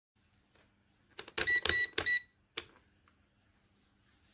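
Multimeter probes clicking against MOSFET pins, then three short beeps from the meter's continuity buzzer in quick succession, followed by one more click.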